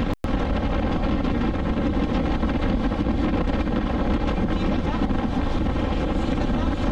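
2020 BMW S1000XR's inline-four engine running at a steady cruise, mixed with wind rush on a chest-mounted action camera. The sound drops out for an instant just after the start.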